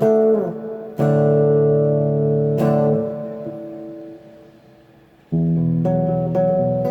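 Guitar played through a Zoom G1X multi-effects pedal: chords struck and left to ring, dying away to a low level, then a fresh chord about five seconds in.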